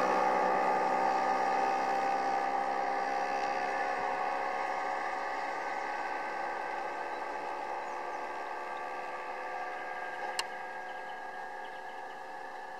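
A steady engine hum, like a vehicle idling, that slowly fades away, with a single sharp click about ten seconds in.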